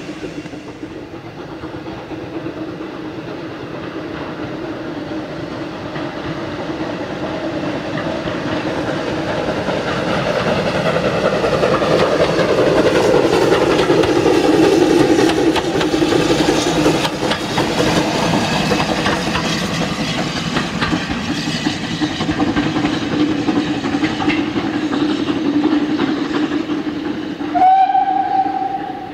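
GWR steam railmotor No. 93 running past, its wheels clicking over the rail joints, growing louder towards the middle and easing off after. Near the end comes a short blast on a steam whistle.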